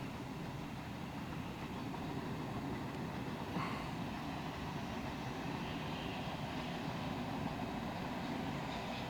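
A train running with a steady low rumble, and one short, sharper sound about three and a half seconds in.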